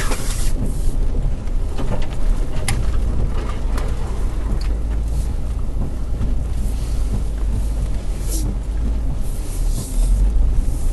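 Off-road vehicle crawling over a rough, rocky dirt trail, heard from inside the cab: a steady low engine and drivetrain rumble with a few short knocks as it jolts over rocks.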